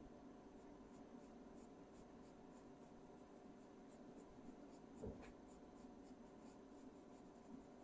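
Faint scratching of a Caran d'Ache Pablo coloured pencil shading on paper in short, quick strokes, with one soft thump about five seconds in.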